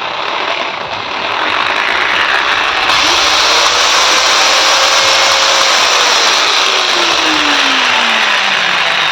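Bosch GWS 600 angle grinder running with no load, its motor and gear head making a loud, steady whir that builds over the first few seconds and then holds at full speed. It has an odd sound that is traced to a damaged gear in the head.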